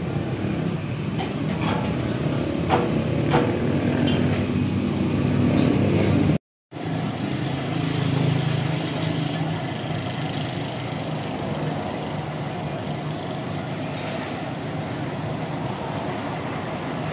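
Steady low rumble of a motor vehicle running, with a few faint clicks in the first few seconds. The sound cuts out briefly about six and a half seconds in.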